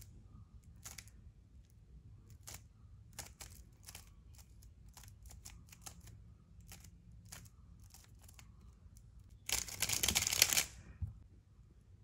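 A plastic 3x3 speed cube's layers clicking as they are turned by hand, in scattered quick turns. About nine and a half seconds in comes a louder, dense rattle of fast turning lasting about a second.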